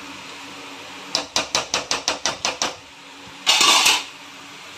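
A steel ladle tapped quickly against the rim of a steel cooking pot, about ten sharp metal taps in a row, followed a second later by a brief half-second burst of noise.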